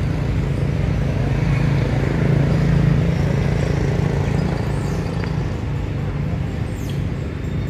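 A motor vehicle engine running steadily, a low drone that swells slightly a few seconds in. A couple of faint high chirps sound near the end.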